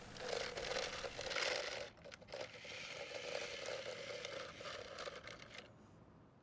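Hard plastic wheels of a toy convertible rolling and scraping over concrete as the car is pushed by hand, in two pushes with a short pause about two seconds in, stopping shortly before the end.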